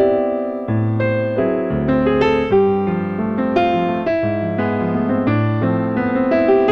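Yamaha Montage 7 synthesizer played two-handed with a piano-type sound: chords over a low bass line, coming in suddenly out of silence.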